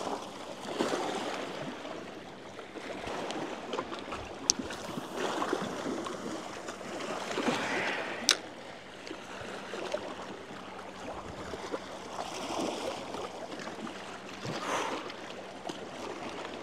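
Small waves lapping at the water's edge, swelling and fading every two or three seconds. Two sharp clicks come near the middle.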